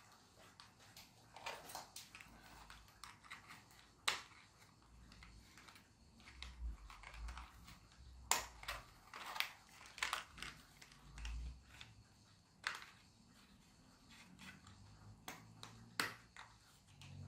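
Faint handling of small plastic parts as a 3D-printed toy car chassis is fitted into a plastic car body shell: light rattles and rubbing with a few sharp plastic clicks, the clearest about 4, 8, 12 and 16 seconds in.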